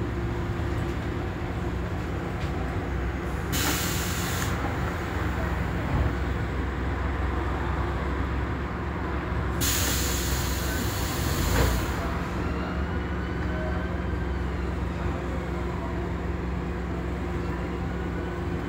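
Scania Omnidekka double-decker bus running, heard from the upper deck: a steady diesel engine hum, broken twice by loud hisses of compressed air from the braking system, a short one about four seconds in and a longer one of about two seconds near ten seconds in, as the bus slows for traffic lights.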